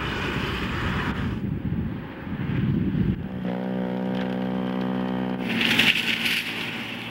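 Snow-clearing sounds one after another: snowplow trucks running with a rush of snow thrown off the blade, then a snowblower's small engine running steadily, then a shovel scraping through snow.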